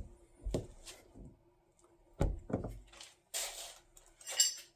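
Knocks and thunks of hands and tools working a rubber lower radiator hose off its radiator outlet, followed by short scraping sounds and a brief high squeak near the end.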